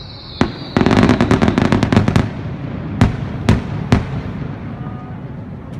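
Fireworks going off. A falling whistle ends in a bang, then a rapid crackling run of pops lasts about a second and a half, followed by three sharp bangs in quick succession.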